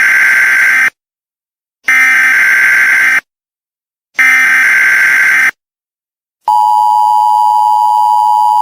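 Emergency Alert System tones. The end of one burst, then two more buzzy data bursts of about a second each with short silences between (the SAME header). After another pause the steady, loud two-tone attention signal starts and holds.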